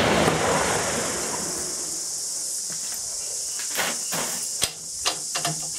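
The report of a .375 CheyTac Improved rifle fired with no muzzle brake, rolling away and fading over the first second or so, over a steady high buzz of insects. A few sharp clicks and knocks follow near the end.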